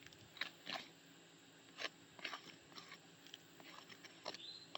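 Faint, scattered gritty crunches and clicks, about a dozen at irregular intervals, from handling and movement on asphalt roofing shingles.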